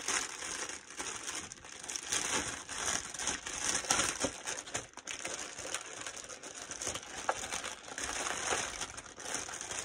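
Crinkling and rustling of cellophane and crinkle-cut paper packing shred being handled, with irregular small crackles throughout.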